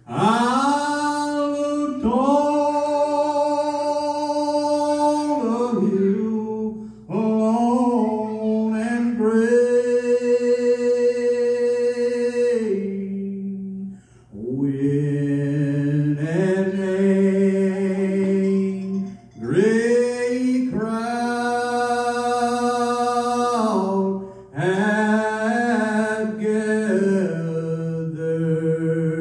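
A man singing solo a cappella, with no instruments, in long held notes. He slides up into the notes at the start of each phrase, with short breaks between about five phrases.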